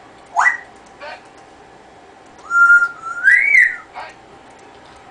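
African grey parrot whistling. A quick upward-sweeping whistle comes first; about two and a half seconds in, a held steady note runs into a longer whistle that rises and falls.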